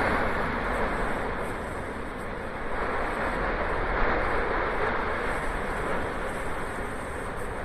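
Cumbre Vieja volcano in strombolian eruption, its lava fountain jetting: a steady rushing noise that swells and eases, with one short crack about four seconds in.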